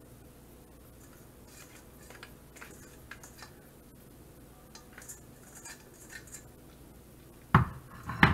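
Mixed vegetables tipped from a stainless steel colander into a pie crust make faint scattered clicks, followed near the end by two loud knocks as the metal colander is set down on the counter.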